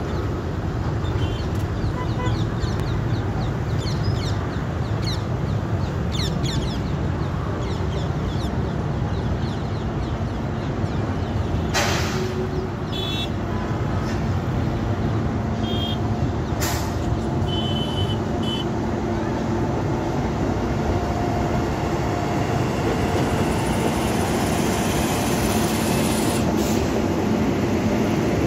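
Electric-locomotive-hauled Indian Railways express train, the Paschim Superfast Express, running steadily along the track as it approaches and passes below. The rumble grows a little louder near the end, and there are a couple of sharp clicks.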